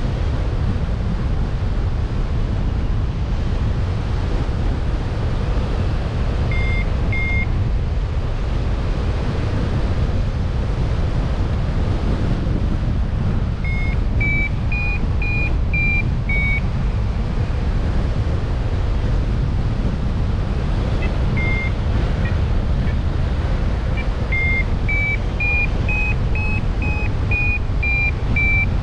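Wind buffeting the microphone as a steady low rumble. Over it come a few runs of short, clear whistled notes that each hold one pitch: two notes about a quarter of the way in, and longer runs later that step up in pitch and then back down.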